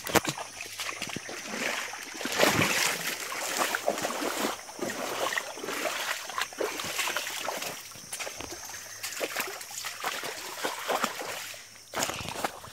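Footsteps of rubber boots wading through shallow muddy water, each step splashing and sloshing.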